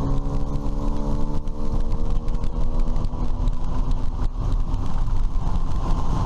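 9.8 hp outboard motor pushing an inflatable PVC boat, its pitch climbing a little as it picks up speed in the first second or two, then running steadily under wind and water noise.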